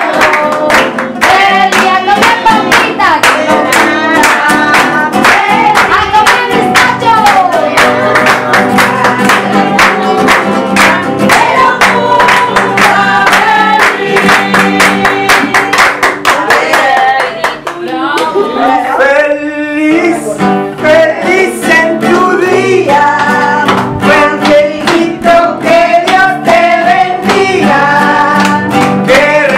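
A group of people singing together to an acoustic guitar, clapping their hands along with the song.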